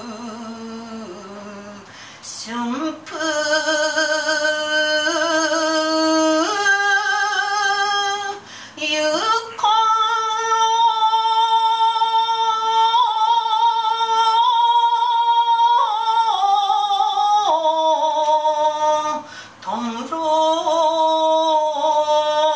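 An older woman chanting shigin unaccompanied: long held notes with a wavering, ornamented pitch that steps up and down between phrases, broken by brief pauses for breath a couple of seconds in, around eight seconds in and near nineteen seconds.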